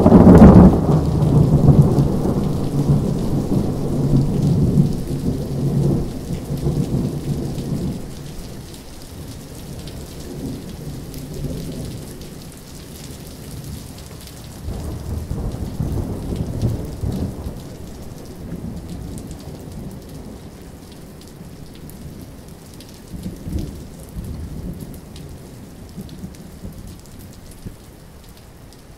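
Thunderstorm with heavy rain: a loud clap of thunder right at the start rumbles away over several seconds, followed by further rolls of thunder about halfway through and again a little later, all over steady rainfall.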